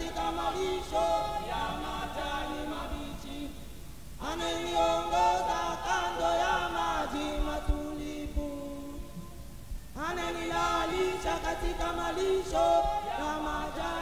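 Unaccompanied singing of a slow, repeated phrase of about five to six seconds, with short breaks between phrases; new phrases begin about four and ten seconds in.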